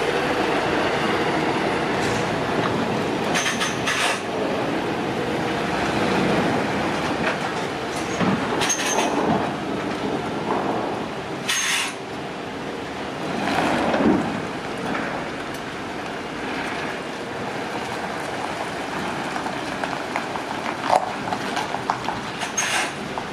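DAF articulated lorry with a curtainsider trailer driving past and pulling away: diesel engine running under tyre rumble and trailer rattle, with a few sharp clicks and a short hiss about halfway. It grows fainter in the second half as it moves off.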